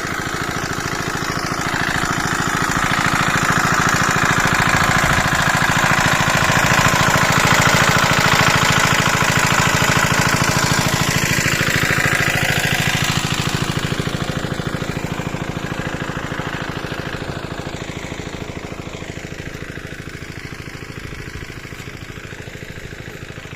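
Engine-driven water pump running at a steady speed, draining the pond. It grows louder over the first several seconds, then fades gradually through the second half.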